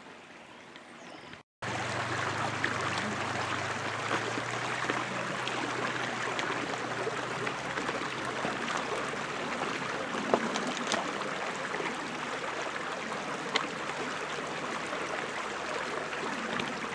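Small brook babbling over stones in a steady rush of running water, coming in loud about a second and a half in after a quieter start.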